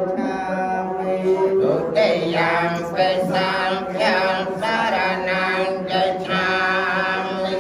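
Buddhist monks chanting together in unison, a continuous low group chant over a steady held tone, growing fuller and louder about two seconds in.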